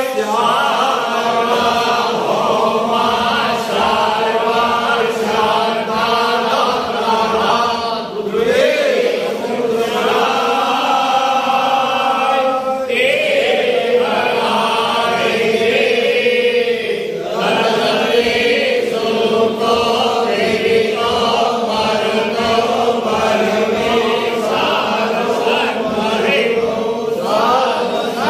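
A group of men and boys chanting a Hindu devotional hymn together in unison, in long sung phrases with brief pauses between them.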